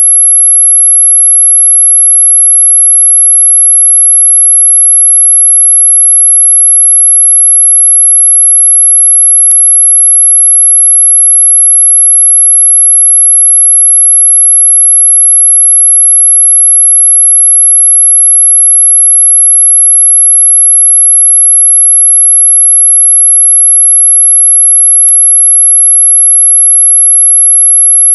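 Electronic mosquito-repellent tone: a single pure, very high-pitched whine held steady and unchanging at a loud level. It is sold as ultrasonic, but the pitch lies within hearing.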